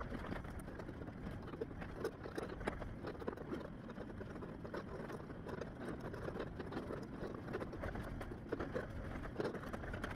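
Tracked excavator's diesel engine running while it tears into a mobile home, with irregular cracks, knocks and clanks of breaking debris.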